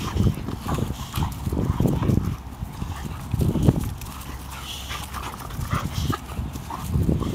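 Boxer dogs tussling over a stick in play: bursts of low growling with scuffling in dry grass and leaves.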